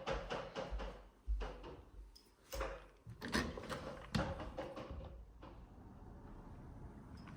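A quick run of clicks, taps and short rustles from things being handled, stopping a little past halfway and leaving a low steady background hum.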